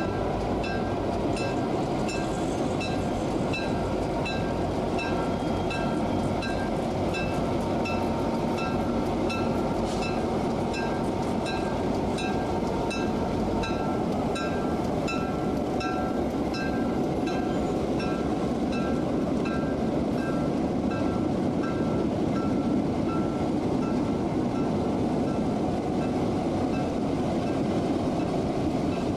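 EMD SD9 diesel-electric locomotives, each with a 16-cylinder EMD 567 engine, passing slowly close by, engines running with a steady heavy rumble. A clear ringing repeats about twice a second through most of it and fades out about two-thirds of the way through.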